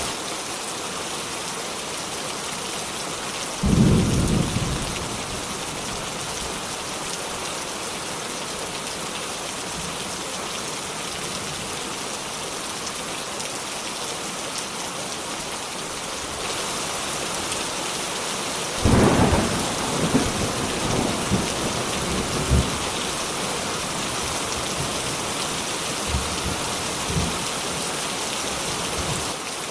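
Steady heavy rain hissing, with a clap of thunder about four seconds in and a longer rumbling roll of thunder starting a little past halfway that breaks into several smaller cracks.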